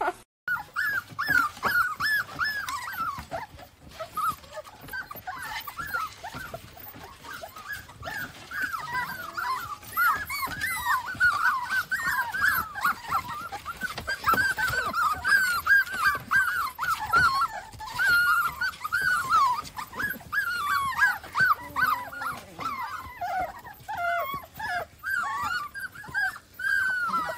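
A litter of young puppies whining and squeaking nonstop, many short, high cries that bend in pitch and overlap one another.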